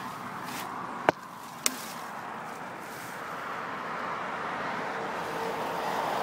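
Leaves, ferns and grass rustling and brushing against a mountain bike and the camera as the bike is pushed by hand through thick undergrowth, getting louder in the second half. About a second in come two sharp clicks half a second apart.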